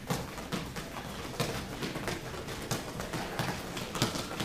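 Quick, uneven footfalls of several people in sneakers tapping through agility ladder drills on rubber gym flooring, several steps a second.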